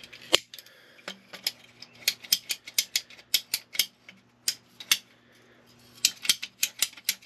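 Ratcheting PVC pipe cutter clicking as its handles are worked to bite through 3/4-inch schedule 40 PVC pipe: runs of sharp clicks, a pause of about a second near the middle, then more clicks near the end.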